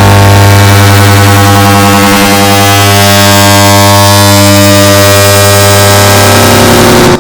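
Air conditioner start-up sound, digitally stacked and amplified into a very loud, distorted hum with many overtones under a harsh hiss. It starts abruptly and cuts off suddenly at the end.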